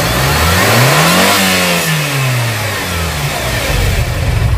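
Nissan X-Trail T30 engine revved once on a long throttle blip: the pitch climbs for about a second and a half, then falls back to a steady idle about three seconds in. The rev is a test of the alternator's one-way clutch pulley.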